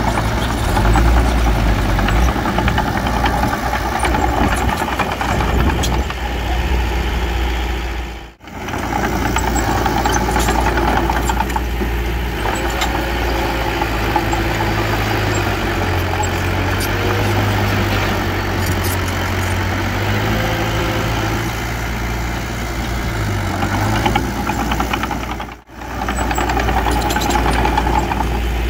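Diesel engines of a mini bulldozer and a dump truck running steadily while working soil. The sound drops out briefly twice, about eight seconds in and a few seconds before the end.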